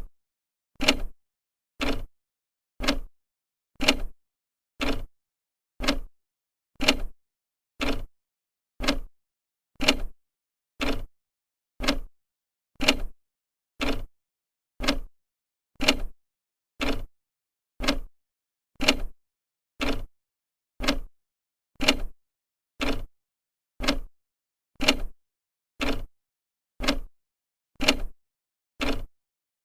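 Old clock ticking, one sharp tick each second with silence between.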